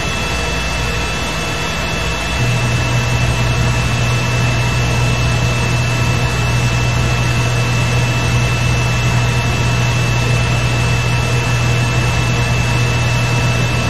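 Steady electrical hum and fan noise from a 3D printer's electronics, with a constant high whine. A deeper mains hum switches on about two seconds in and holds: the heated bed powering up as the PID autotune cycles it on and off.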